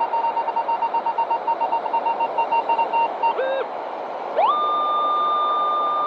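Metal detector sounding: a fast, stuttering beep at one pitch for about three seconds, a short lower tone, then about four and a half seconds in a tone glides up and holds steady, the detector's signal over a buried metal target in the sand. A steady hiss runs underneath.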